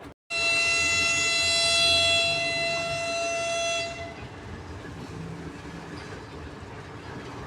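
A diesel locomotive horn sounds one long steady high note lasting about three and a half seconds, starting abruptly. It gives way to a lower steady rumble of the locomotive.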